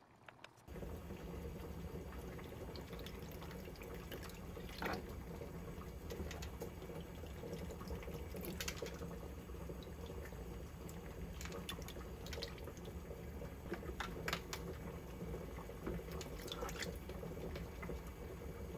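Water running steadily into a kitchen sink or basin, with scattered light drips and clinks; it starts abruptly under a second in.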